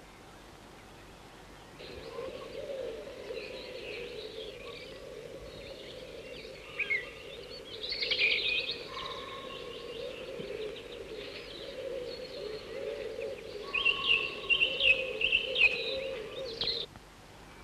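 Chickadees chirping and twittering rapidly, over a steady lower hum. The sound starts about two seconds in and stops abruptly just before the end, with the loudest run of chirps near the end.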